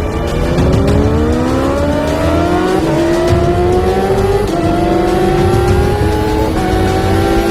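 Kawasaki Ninja H2R's supercharged inline-four engine accelerating hard. Its pitch climbs steadily and dips briefly about three times as it shifts up through the gears.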